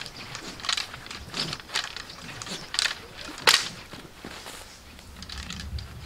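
Silambam staff being spun: a run of short, irregular swishes through the air, the loudest and sharpest about three and a half seconds in, mixed with feet scuffing on gravelly dirt.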